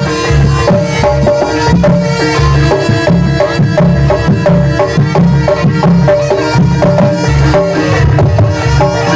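Loud Javanese jaranan accompaniment music: hand drums beating a dense, driving rhythm under a repeating melody of ringing metal percussion.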